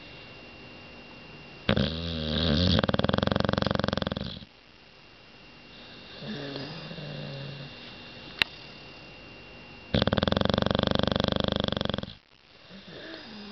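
Bulldog snoring: two long, loud snores, one starting about two seconds in and another about ten seconds in, with softer breaths between them. A brief sharp click sounds about eight seconds in.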